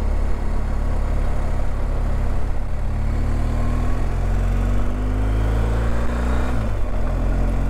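BMW R1250GS Adventure's boxer-twin engine pulling up a steep climb, its pitch rising over a couple of seconds late on, then dropping back briefly.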